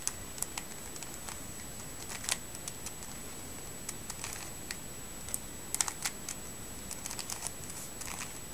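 Plastic 3x3 speedcube's layers clicking as they are turned slowly by hand through an OLL algorithm: a scattered, irregular run of light clicks.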